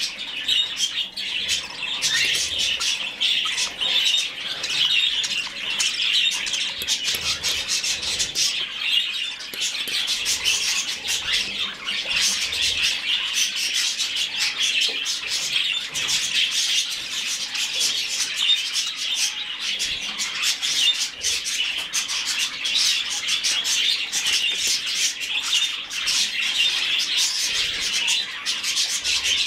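Budgerigar chick giving continuous high chirping begging calls while being hand-fed.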